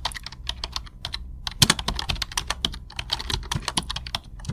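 Computer keyboard typing: many quick, irregular key clicks over a faint low hum, a typing sound effect that starts and cuts off abruptly.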